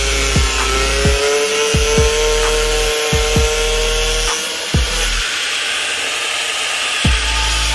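Angle grinder cutting through a PVC pipe. Its motor whine rises slightly in pitch and stops a little over four seconds in. Background music with a regular thumping beat plays throughout.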